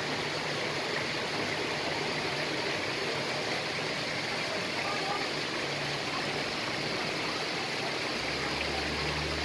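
Steady rush of running water, with a low hum coming in near the end.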